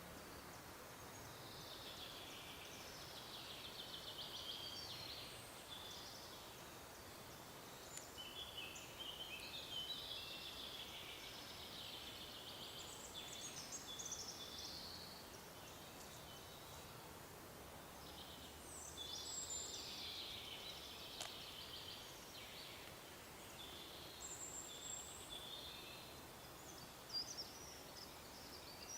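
Songbirds singing in a forest: a series of quick, warbling phrases in turn, faint, over a steady low hiss.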